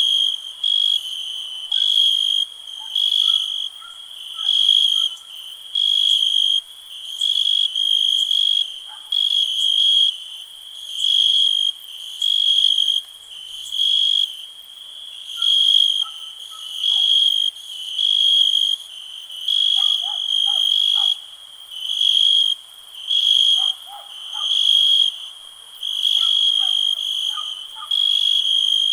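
A cricket chirping, high and steady in pitch, in a regular train of pulses about once a second. Fainter, lower, brief calls come and go behind it.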